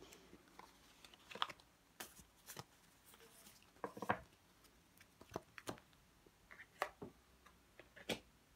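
Tarot cards being handled on a table: irregular taps, clicks and short rustles, about a dozen, with no steady rhythm.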